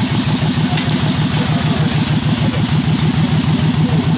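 Motorcycle engine idling steadily with a rapid, even beat.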